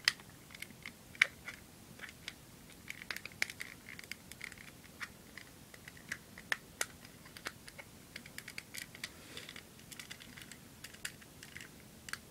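Plastic Lego pieces clicking and rattling as flat plates are handled and pressed onto a model, in many irregular light clicks with a few sharper snaps, one about a second in.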